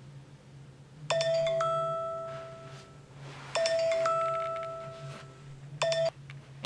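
Smartphone playing a mallet-like chime tone: a struck note with a second, higher note joining it, repeating about every two and a half seconds. It plays twice in full, then is cut off short near the end as the phone is picked up and silenced.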